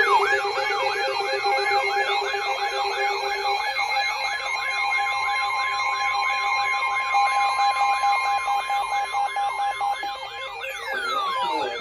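Emergency alert tones: a steady two-note attention signal with a warbling, siren-like tone sweeping up and down about three times a second over it. A lower steady tone drops out after a few seconds, and near the end a tone slides downward. These tones herald the next severe thunderstorm warning.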